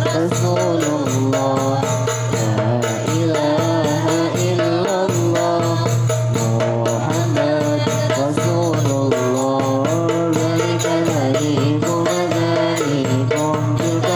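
A teaching song: a voice sings a melody over steady music with a rattling percussion beat.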